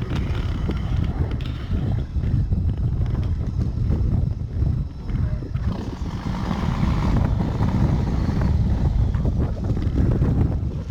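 Wind buffeting the microphone: a loud, uneven low rumble that rises and falls throughout.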